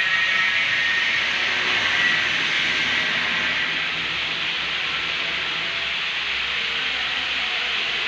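Electric arc welding: the arc giving a steady hissing crackle, a little louder in the first few seconds.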